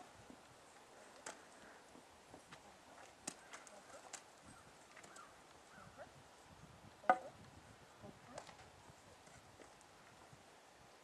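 Faint, scattered steps of a horse's hooves on a dirt arena floor as it turns on its haunches, with a few short clicks and knocks. One louder, short sound comes about seven seconds in.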